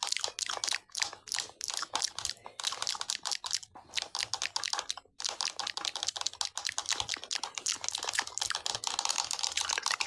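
Rapid, irregular clicking and crackling, like fast typing, with two short breaks about four and five seconds in.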